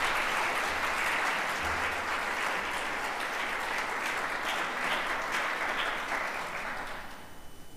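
Church congregation applauding steadily, dying away about seven seconds in.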